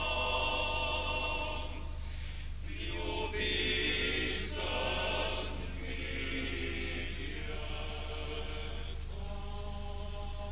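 Background music: a choir singing slow, long-held notes, with a steady hum underneath.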